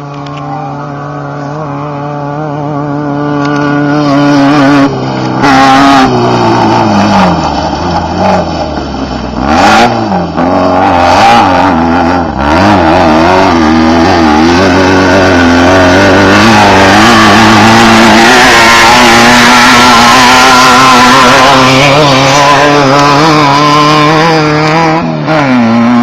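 Off-road desert race car's engine, growing louder as it approaches and then running loud and close. Its pitch falls and wavers for several seconds, then holds steady, dipping slightly near the end.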